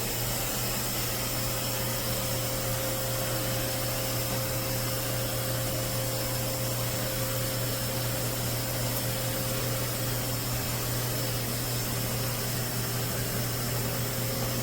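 Narwal Freo X Plus robot vacuum running, its suction motor giving a steady rushing hiss over a constant low hum and a steady whine.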